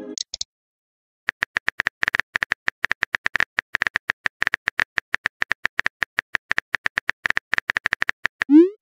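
Phone-keyboard typing sound effect of a texting app: a rapid, even run of short pitched clicks, one per letter, as a message is typed out. It ends in a louder rising swoosh as the message is sent.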